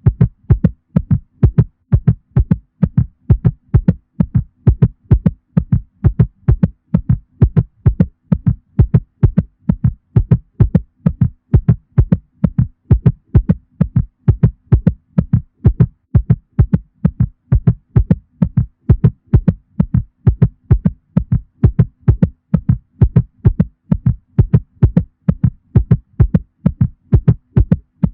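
Cat heartbeat sound effect: a fast, even rhythm of low paired thumps (lub-dub) over a faint steady low hum.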